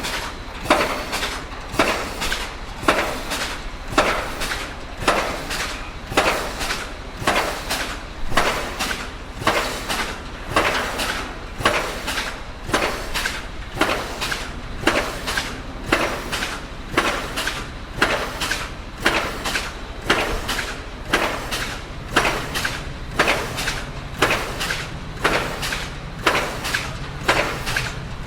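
Pile driver hammering at a steady pace of about one blow a second, each strike a sharp metallic impact, over a continuous low engine hum.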